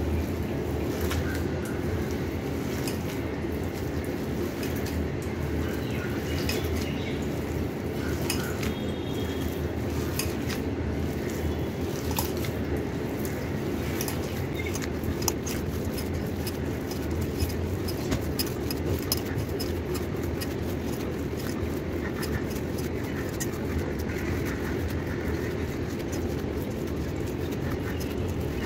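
A hand squishing and kneading minced mutton mixture in a stainless steel bowl, with many light clicks and taps against the metal. A steady low rumble runs underneath.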